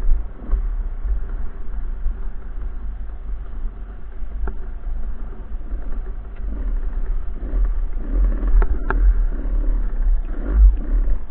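Enduro dirt bike engine running and revving while riding off-road, under a heavy low rumble, with a few sharp knocks in the second half.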